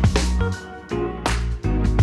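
Background music with a steady beat of drum hits over a bass line.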